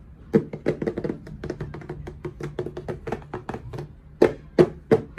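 A quick, uneven run of light taps and clicks, with a few sharper, louder strikes near the end, over a faint steady hum.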